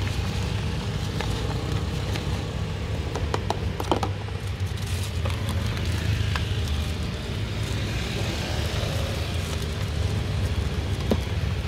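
Steady low rumble of street traffic, with a few light clicks and rustles of a plastic tub and bag being handled a few seconds in.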